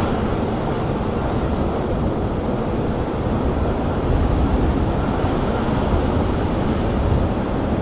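Steady low rumble of railyard ambience in winter, with a few faint quick ticks about three seconds in.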